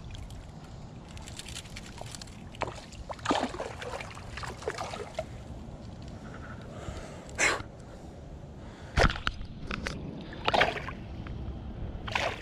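Short splashes and sloshes of water, about six of them, from a hooked fish thrashing at the surface as it is played in to a landing net. A hard knock comes about nine seconds in.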